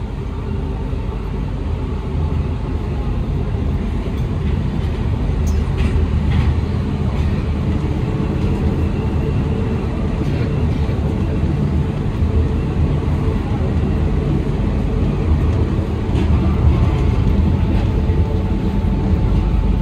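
Interior running noise of an Alstom NS-93 rubber-tyred metro train travelling through a tunnel: a steady low rumble, a little louder from about two seconds in, with a few faint ticks.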